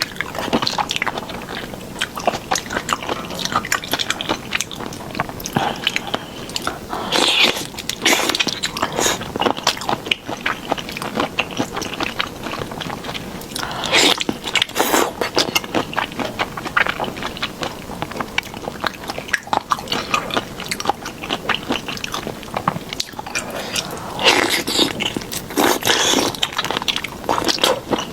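Close-miked eating of shrimp in sauce: steady biting and chewing, with many short irregular clicks and smacks that come in louder clusters now and then.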